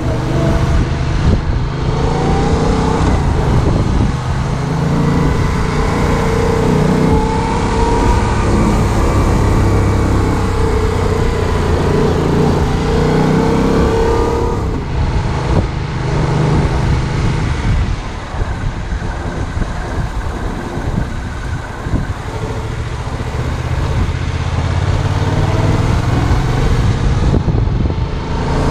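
Yamaha MT-07's 700cc parallel-twin engine running under way. Its pitch rises and falls again and again as it pulls and eases through the gears, drops back for several seconds past the middle, then builds again near the end.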